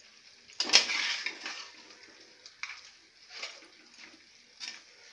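A steel spoon scraping and stirring thick mutton masala in a terracotta clay pot: one loud scrape about half a second in, then three or four shorter, fainter strokes.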